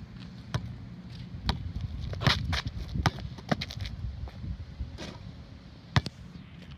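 Basketball bouncing on a court during dribbling moves, an irregular series of sharp thuds.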